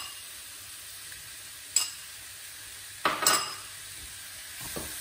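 Seared, spiced lamb pieces sizzling steadily in a frying pan, with a single sharp utensil knock about two seconds in and a short clatter of knocks a little after three seconds as ginger-garlic paste is added.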